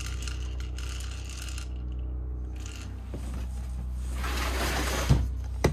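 Fishing gear being handled over a steady low hum: a rustling, sliding noise builds about four seconds in, followed by two sharp clicks near the end.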